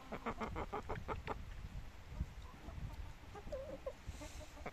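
A hen clucking: a quick run of about eight clucks in the first second and a half, then a softer, lower cluck about three and a half seconds in, over a low rumble.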